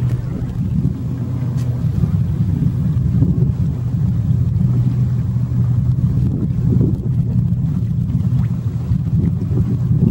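A steady low engine drone with a constant hum, mixed with rushing wind noise.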